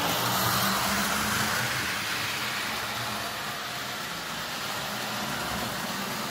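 Prewar American Flyer Hiawatha O gauge locomotive running: its electric motor whirring and its wheels rolling on three-rail track, a little louder in the first two seconds.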